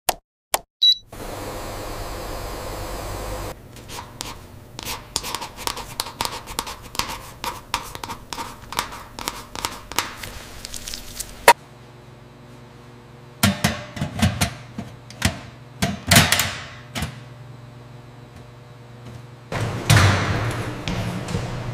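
Small handling sounds: a few clicks, a run of quick scratchy strokes like a marker writing on a paper label, some thunks, then a steady rolling rumble with a low hum near the end, as of a metal trolley wheeled over a tiled floor.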